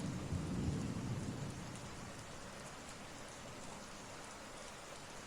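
Steady rain ambience, a sound-effect bed, with a low rumble of thunder that fades away over the first two seconds.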